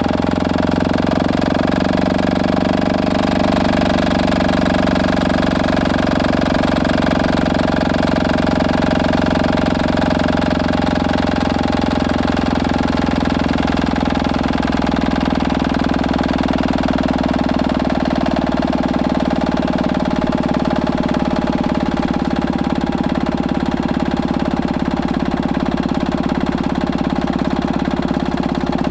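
Stuart Turner H1 stationary engine running steadily without a load, its speed wandering slightly; it needs a load to level it out.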